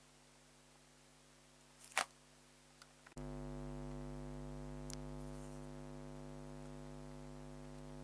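A single sharp click about two seconds in, followed by a few faint ticks. Then a steady electrical hum with many evenly spaced tones starts abruptly and runs on.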